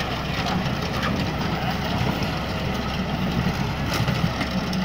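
Massey Ferguson tractor's diesel engine running steadily at low revs while it hauls a combine-harvester header.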